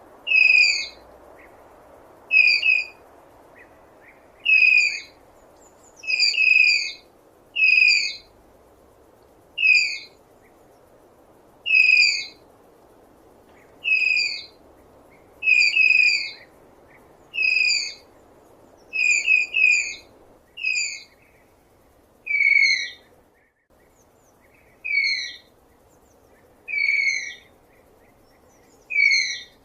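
A bird repeating a short, high, downward-slurred call about once every two seconds, now and then given as a quick pair.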